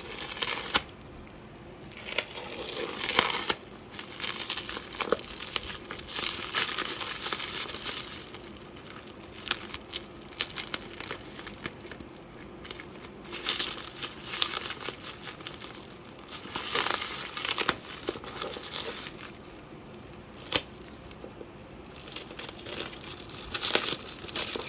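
Bubble wrap crinkling and tearing in irregular bursts as it is pulled and torn off a box, with short pauses in between.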